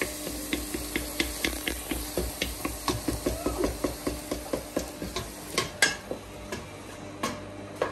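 Wooden spoon stirring chopped tomato and onion in a stainless steel pot, knocking and scraping against the pot several times a second over a faint sizzle of the food frying in oil. One sharper knock comes a little before six seconds in, and the taps then thin out.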